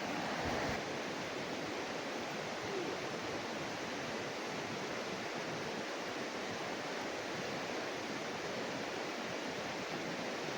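Steady rushing of a river's fast current, with no other sound standing out.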